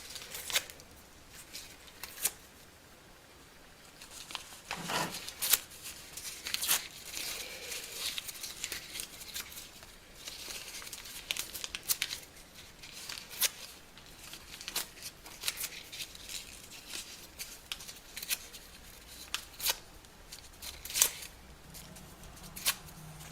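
Paper being torn up into small pieces: a run of short, irregular rips and crinkles with pauses between them.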